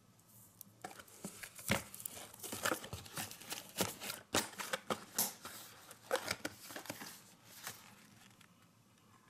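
Cardboard firework boxes and packaging being handled and shifted about: a busy run of crinkles, rustles and light knocks that starts about a second in and dies away near the end.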